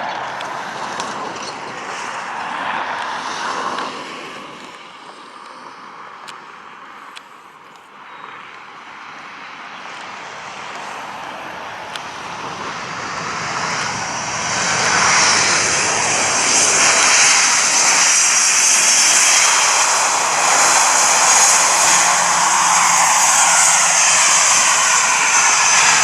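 Airplane engine noise, moderate at first, then building steadily about halfway through to a loud, sustained sound with a high whine on top, as an aircraft runs up or passes close.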